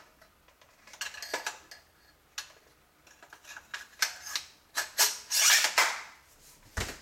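Beretta A391 Xtrema 2 shotgun barrel being slid over the magazine tube and onto the receiver: metal clicks and scraping, with a longer scrape about five seconds in and a single knock near the end.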